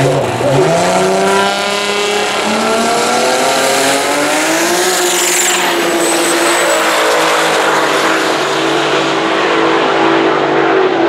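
Drag cars, among them a 2JZ-powered Honda, launching off the line and accelerating hard down the strip. The engine note climbs steeply for about five seconds, then holds high and steady as the cars run away.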